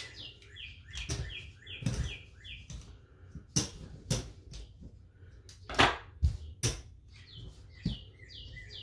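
Clay casino chips clacking as they are picked up and set down on a craps table layout: a series of sharp clicks, loudest a little past the middle. A small bird chirps repeatedly in quick, falling notes in the first few seconds and again near the end.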